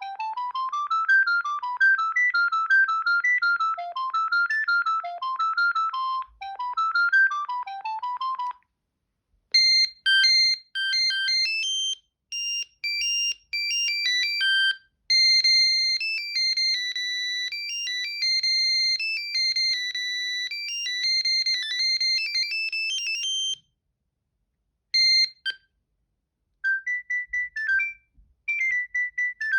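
Default ringtones of an Alcatel OT 715 mobile phone, played one after another. A mid-pitched tune runs until about eight seconds in. After a short pause a higher, chiming tune of several notes at once plays until about two-thirds of the way through. Then come a pause, two short beeps and a new tune near the end.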